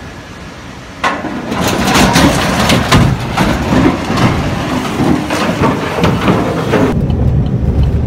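A sudden, loud crashing and clattering breaks out about a second in and goes on for several seconds with many sharp knocks: a steel truss bridge giving way under a truck carrying an excavator, mixed with the camera being jostled. Near the end it gives way to a low, steady rumble.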